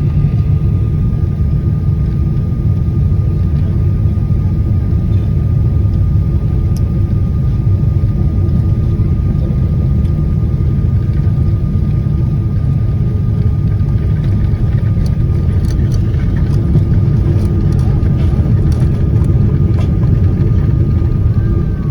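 Steady low rumble heard from inside a moving vehicle, with a faint steady whine above it and a few light clicks near the end.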